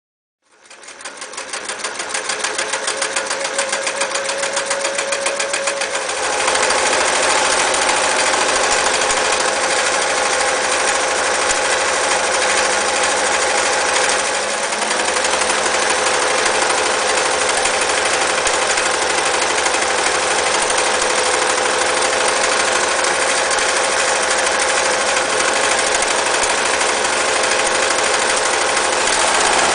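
Singer 315K electric sewing machine starting up and running, its needle mechanism stitching with a rapid even rhythm. About six seconds in it speeds up and gets louder, then runs steadily at the faster speed.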